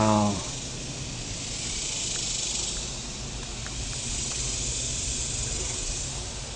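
Steady hissing buzz of a large honeybee colony at the hive, swelling and easing gently a couple of times, with a few faint ticks.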